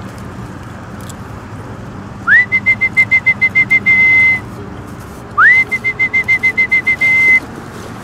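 A high, loud whistled call, heard twice. Each time it rises quickly to one pitch, breaks into a fast trill of about a dozen pulses, and ends on a briefly held note.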